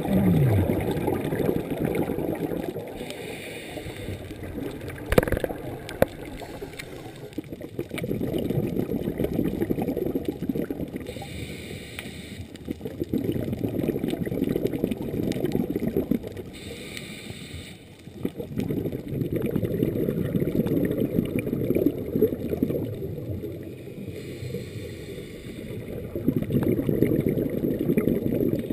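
Scuba diver breathing underwater through a regulator: long bubbling rushes of exhaled air every five or six seconds, with a short hiss of inhalation between them.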